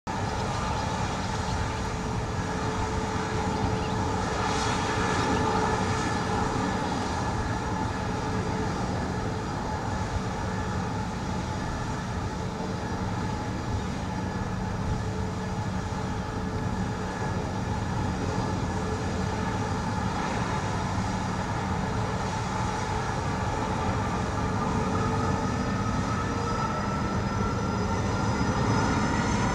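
Jet engines of taxiing airliners running at low power: a steady whine over a low rumble. Near the end one whine rises in pitch as an engine spools up.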